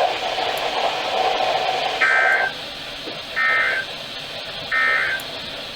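Three short bursts of NOAA Weather Radio SAME digital data tones, each about half a second long and about a second and a half apart, after a couple of seconds of steady radio noise. They are the end-of-message code closing the severe thunderstorm warning.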